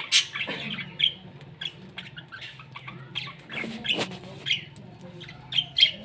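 Budgerigars chattering: a steady string of short, high chirps and warbles, with a sharp click near the start and another about four seconds in.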